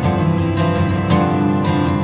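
Background music led by a strummed acoustic guitar, with a steady rhythm of strokes.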